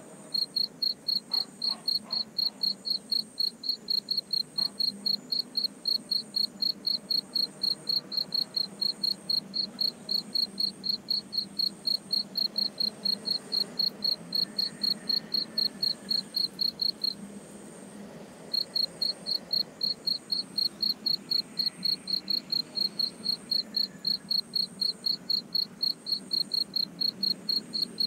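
Cricket chirping steadily, about four evenly spaced high chirps a second, stopping briefly about two-thirds of the way through before starting again. A fainter, higher-pitched insect chirps along with it.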